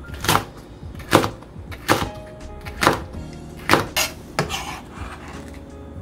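Kitchen knife chopping on a cutting board in slow, even strokes, about one a second, six strikes in all, over background music.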